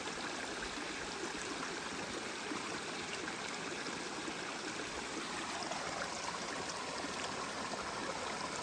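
Shallow creek running with a steady babble of flowing water.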